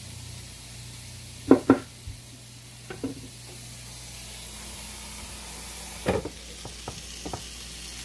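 Steak sizzling as it cooks, with a few sharp knocks over it. The two loudest knocks come close together about a second and a half in, and smaller clicks follow later.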